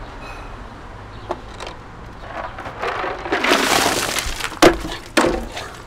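Ice water dumped from a plastic cooler over a person's head: a rush of pouring and splashing that builds from about two seconds in, with ice cubes clattering onto concrete steps. Two sharp knocks near the end.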